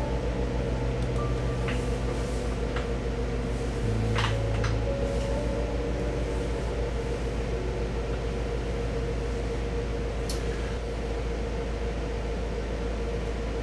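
Steady low drone of a boat's diesel engine running, with soft background music over it.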